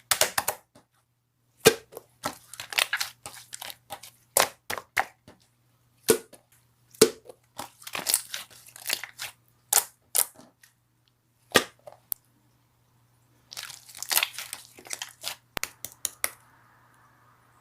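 Clear slime being squeezed and pressed by hand, giving crisp clicking and crackling pops in irregular bursts with short silent gaps between them.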